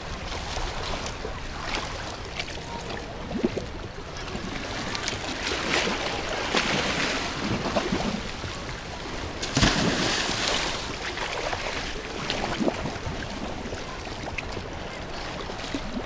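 Sea waves washing and splashing against a concrete breakwater, with swimmers splashing in the water close by. The wash swells louder about six and ten seconds in.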